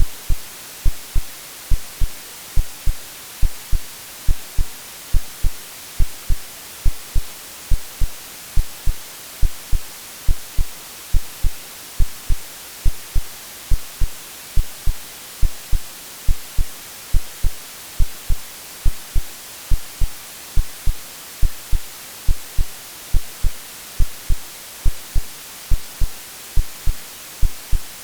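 AI-generated heartbeat, a steady rhythm of short low thumps, played over continuous white noise hiss as a womb-like sleep sound for babies.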